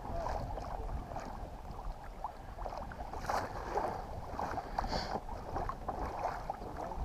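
Small waves lapping against a kayak's hull in irregular little splashes and ticks. Wind rumbles on the microphone underneath.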